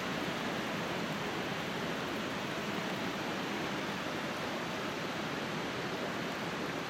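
Steady rushing of running water, a creek flowing at the road culvert, with no breaks or impacts.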